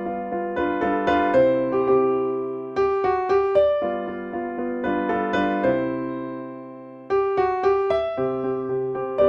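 Solo piano playing a slow hymn tune in chords, each struck chord fading, with one phrase dying away before a new one begins about seven seconds in.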